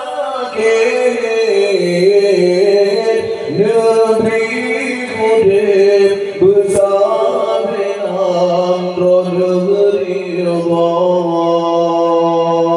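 A man singing an Acehnese qasidah in long held notes that bend and slide between pitches.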